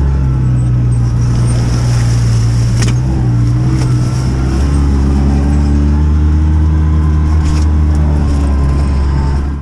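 A motor vehicle's engine running steadily as it drives, heard close from on board, with small shifts in pitch along the way. The sound cuts off suddenly near the end.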